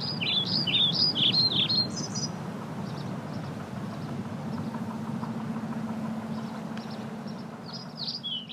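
A songbird singing a quick run of high, sliding whistled notes for about two seconds, then fainter notes, and another burst near the end. Under it runs a steady low hum.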